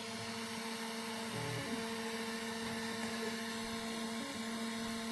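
Prusa 3D printer's stepper motors whining in steady tones while printing, the pitch breaking and shifting briefly twice, about a second and a half in and again past four seconds.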